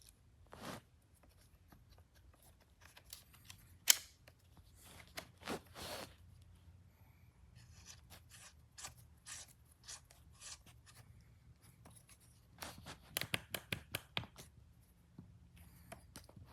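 Handling noises: scattered small clicks and rubs, one sharp click about four seconds in, and a quick run of clicks near the end.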